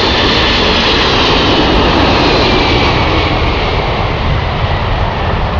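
Four-engined Boeing 747 jetliner passing low on landing approach: loud, steady jet engine noise with a high whine that slowly falls in pitch as it goes by.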